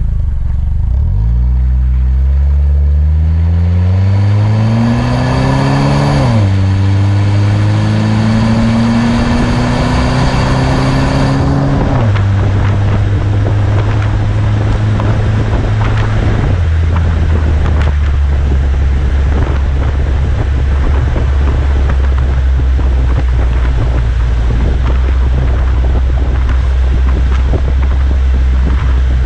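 Chrysler PT Cruiser's four-cylinder engine heard at the tailpipe through a Gibson cat-back exhaust, accelerating from a pull-away. The revs climb, drop at upshifts about 6 and 12 seconds in, drop again near 17 seconds, then settle into a steady cruise. Wind and wet-road noise run underneath.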